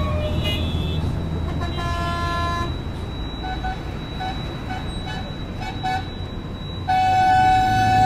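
Busy road traffic: a steady low rumble of passing engines, overlaid with car horns. One horn sounds about two seconds in, then a string of short quick toots, then a long loud blast near the end.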